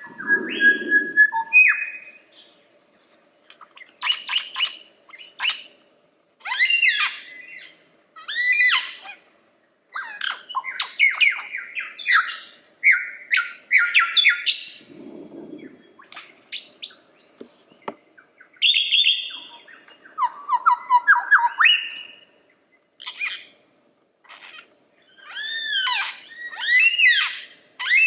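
Male lyrebird singing a loud, varied song: whistled notes, downward sweeps and quick runs of repeated arching notes, in bursts with short gaps between them.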